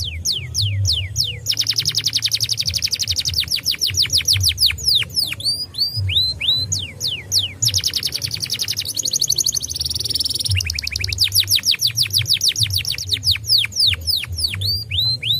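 Domestic canary singing: runs of quick downward-slurred whistled notes alternating with very fast trills, and a buzzy rolling trill in the middle.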